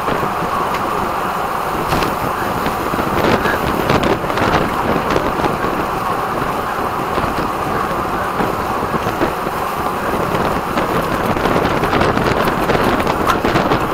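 Steady wind rush over the microphone of a camera riding on a road bike at race speed, with scattered small clicks and knocks.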